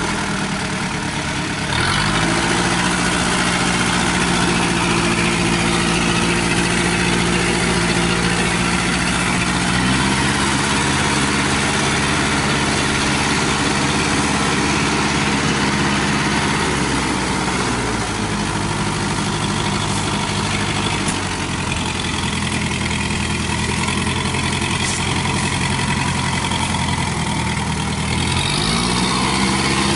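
Engine of a small tracked rice-sack carrier running steadily, its pitch stepping up and down with the throttle: rising about two seconds in and again about ten seconds in, dropping after about seventeen seconds, and rising once more near the end.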